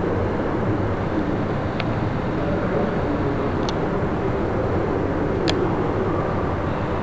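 Steady low background rumble with three faint, short high clicks about two seconds apart.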